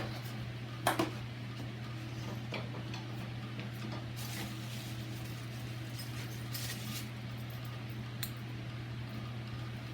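Small metal lock parts and screws clinking as they are handled and fitted, with a sharp clink about a second in and a few lighter ones later, over a steady low hum.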